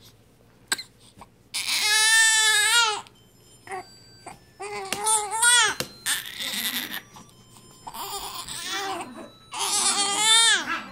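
One-month-old baby crying: a long wail about two seconds in, shorter broken cries and breathy sobs in the middle, and another loud wail near the end, with short pauses for breath between them.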